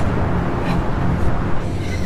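Loud, steady, low rumbling noise in a heavily distorted, effects-processed soundtrack; its higher part drops away near the end.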